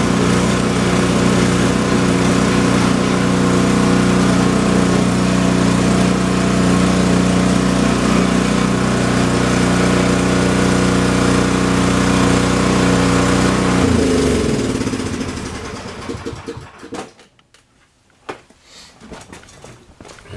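Husqvarna 1830HV snowblower's 414 cc single-cylinder engine running steadily, then shut off about 14 seconds in, its pitch falling as it spins down to a stop. A few light knocks follow in the quiet.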